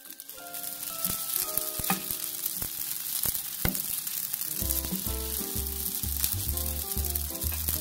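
Small dried anchovies being stir-toasted in a frying pan with a spatula: a steady dry sizzle and crackle with frequent small scrapes and ticks. Background music with held notes plays over it, and a bass line comes in a little past halfway.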